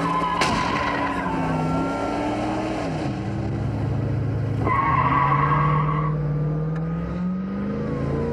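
Car engine revving hard and changing pitch as the car speeds away, with a tyre squeal for about a second near the middle.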